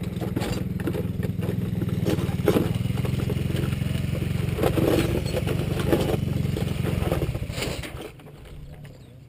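Small motorcycle engine idling steadily close by, with a few knocks and clatters, until the engine cuts out about eight seconds in.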